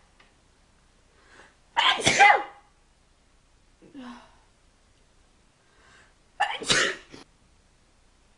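A person sneezing twice, about four and a half seconds apart, each sneeze a loud sudden burst preceded by a faint intake of breath, part of a run of repeated sneezes.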